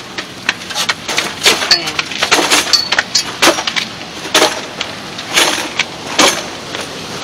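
Irregular rustling and knocking from a body-carried camera being jostled while walking, with hair and a jacket brushing against its microphone.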